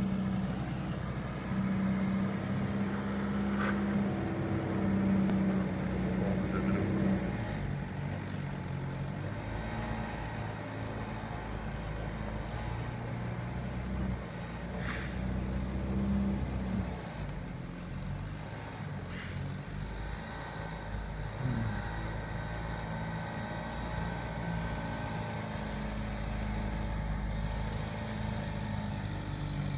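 Citroën DS 21's four-cylinder petrol engine running steadily at low revs, with a few sharp clicks along the way.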